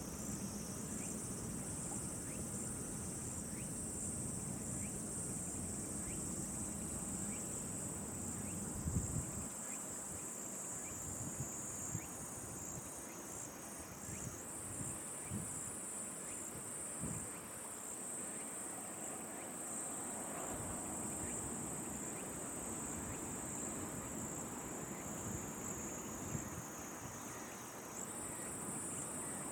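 Steady high-pitched chorus of insects, whose pitch steps slightly about halfway through and again near the end. A few brief knocks sound over it, the loudest about a third of the way in.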